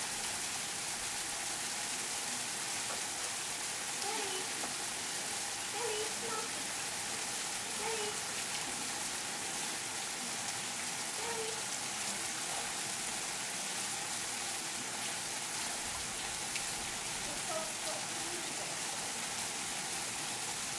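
Steady hiss of a fine water spray from a garden hose falling onto the pool surface, sounding like light rain.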